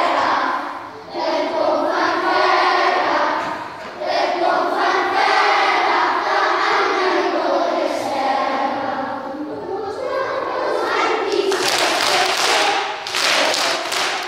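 A large group of young children singing a song together in chorus, in phrases with short breaks. Near the end it turns noisier, with shouts and thuds.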